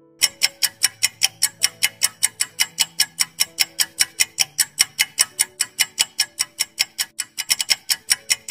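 Quiz countdown-timer sound effect: a clock ticking fast and evenly, about five ticks a second, over soft sustained music notes. The ticks come closer together about 7.5 seconds in as the countdown nears its end.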